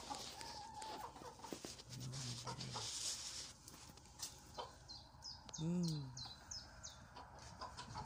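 Hens and a rooster clucking in a coop: low, drawn-out clucks about two seconds in and again near six seconds, with a quick run of high-pitched chirps just before the second one.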